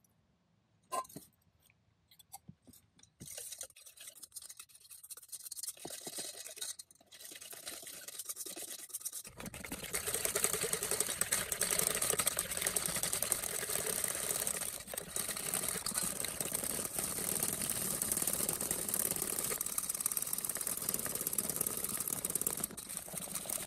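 Wire whisk beating egg whites in a stainless steel pot: a rapid, steady scraping and clatter of the whisk wires against the metal. It starts light and sparse, then becomes dense and louder about nine seconds in.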